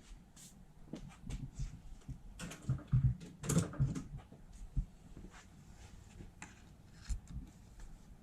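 Scattered clicks and knocks of a 10 mm socket wrench working the bolt that holds a VVT solenoid on the engine, with a louder cluster about three and a half seconds in.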